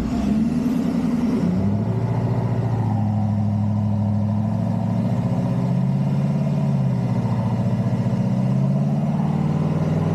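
A vehicle engine held at steady part throttle under load, pulling on a line rigged to a tree. Its pitch shifts in the first couple of seconds, then holds with slight wavering.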